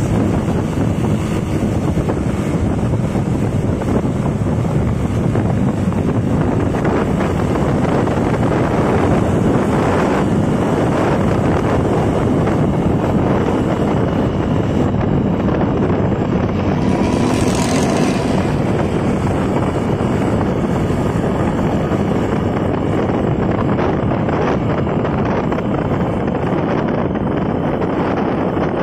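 Intercity bus under way with its modified 'ngorok' (snoring) exhaust, running steadily and loud.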